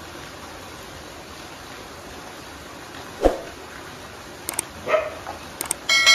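Two short, bark-like yelps with a falling pitch, about a second and a half apart, over a steady hiss. Near the end come the mouse-click sounds and the ringing bell chime of a subscribe-button sound effect.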